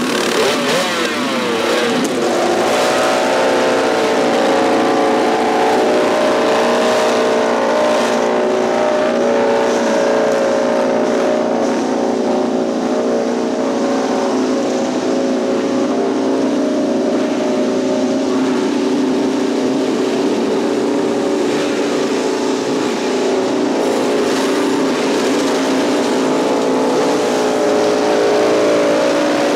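Race motorcycle engine running at a fast, steady idle, its revs swinging up and down in the first couple of seconds before holding level.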